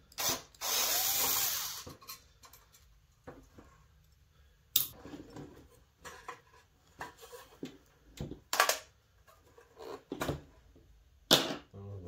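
Cordless electric screwdriver running for about a second as it turns a screw in the heater's plastic housing, followed by scattered clicks and knocks of plastic and sheet-metal parts being handled.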